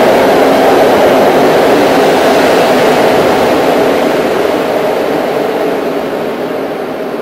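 Passenger train's coaches rolling past along an underground station platform: a loud, steady rumble of wheels on rails that slowly fades from about halfway through.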